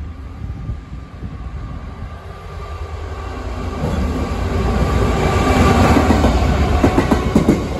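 Class 66 diesel freight locomotive hauling a train, approaching and passing close by. Its engine and wheel rumble grows louder over the first few seconds and is loudest about five to six seconds in, with wheels clattering over rail joints as it goes past.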